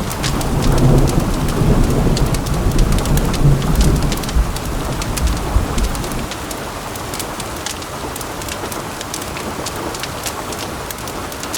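Heavy rain falling steadily, with a long low rumble of thunder that fades out about halfway through. Scattered sharp ticks sit over the rain.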